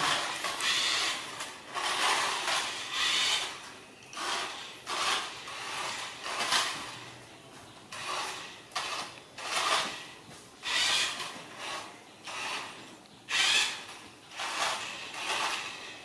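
Short scraping and rubbing bursts, one every second or so, from a toy remote-control car skidding about a tiled floor and a young monkey scampering around it.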